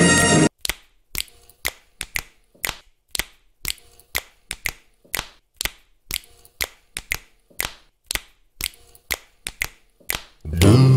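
Orchestral music cuts off about half a second in, followed by a steady run of sharp, even clicks at about two a second, like ticking. New music comes in shortly before the end.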